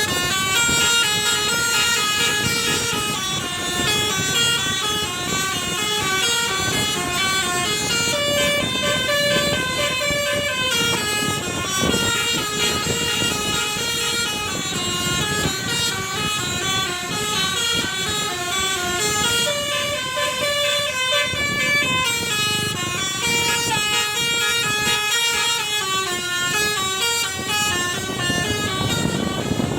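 Telolet basuri multi-trumpet bus horn playing a long, fast melody: notes step quickly up and down in repeating zigzag runs, several tones sounding together.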